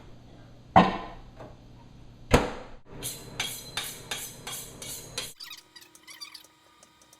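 Two sharp knocks about a second and a half apart, then a quick run of about eight clicks, about three a second, from the microwave oven's keypad. About five seconds in, the microwave starts running with a steady hum.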